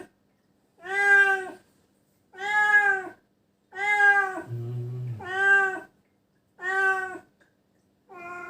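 Domestic cat meowing over and over, six drawn-out meows about one every second and a half, the last one fainter, with a short low sound between the fourth and fifth. It is a pet cat crying after being bitten by a venomous animal.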